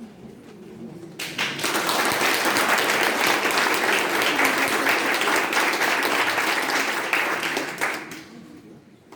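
Audience applauding: the clapping starts about a second in, holds steady and full, and dies away near the end.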